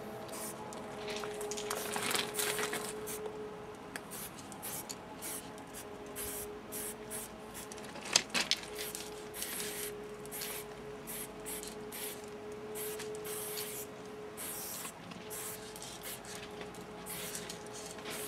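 Aerosol spray-paint can hissing in repeated short bursts as a tag is sprayed, under a faint steady hum. There is one sharp click about eight seconds in.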